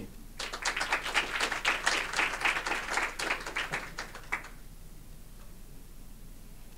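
Audience applauding, starting about half a second in and stopping after about four seconds.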